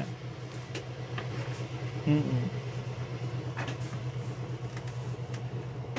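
A steady low hum from a running motor, with a slight even throb. A brief low vocal sound falls in pitch about two seconds in.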